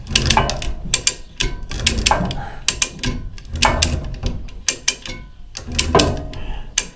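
A ratchet lifting mechanism clicking in repeated strokes, roughly once a second, each with a short metallic ring, as the wood chipper is raised, over a low steady rumble.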